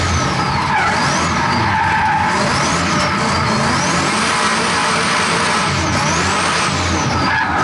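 Holden Commodore drift car's engine revving up and down over and over as the throttle is worked through the drift, over a loud rush of tyre and road noise, heard from inside the stripped, roll-caged cabin.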